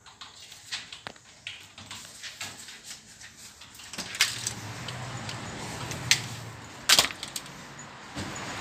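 Clicks, knocks and shuffling of a handheld phone being carried while someone walks out through an office door, with steady traffic noise setting in about four seconds in. A few sharper knocks stand out, the loudest a double knock about seven seconds in.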